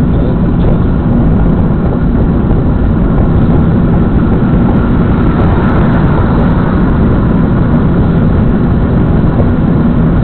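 Car driving along a road, heard from inside the cabin: a steady, loud rumble of engine and road noise.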